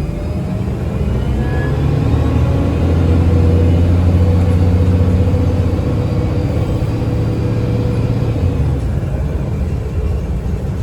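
A 2009 Gillig BRT 40-foot transit bus's engine and Voith transmission pulling the bus up to speed, heard from inside the bus. A deep rumble swells over the first few seconds, holds, then eases off near the end, with faint whines gliding in pitch above it.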